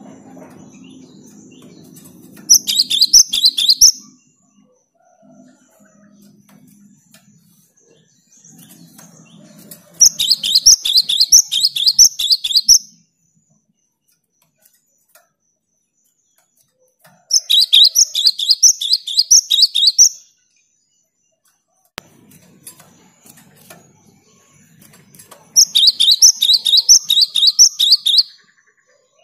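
A gelatik batu (cinereous tit) singing energetically: four bursts of quick, high, repeated notes, each lasting two to three seconds, with pauses between them.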